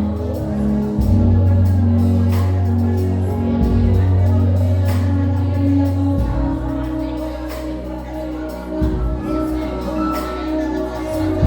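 Live gospel band music: sustained bass notes and held keyboard chords changing every second or two, with regular drum and cymbal hits.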